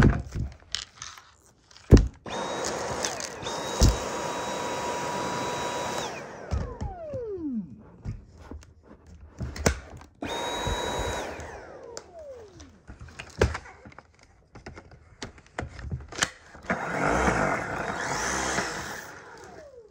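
Dyson V8 cordless stick vacuum switched on in two short runs, its motor giving a steady high whine under the rush of air; each time the trigger is let go the whine falls as the motor spins down. Sharp clicks and knocks of the plastic body between runs, and another burst of rushing air near the end.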